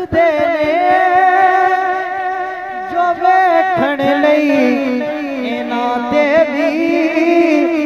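A young man singing an unaccompanied Punjabi naat through a microphone, drawing out long, ornamented held notes with a wavering pitch that slides lower about halfway through.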